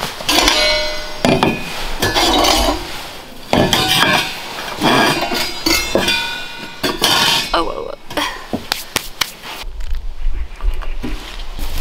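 Stainless-steel chimney pipe sections of a small wood stove clinking and ringing as they are pulled out and slotted together, many sharp metal knocks each with a short ring. A low rumble comes in near the end.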